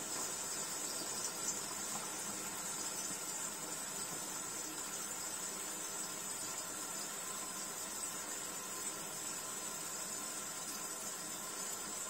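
Tap water running steadily through a shower-head hose into the manual-fill opening of a tabletop dishwasher, a steady high hiss.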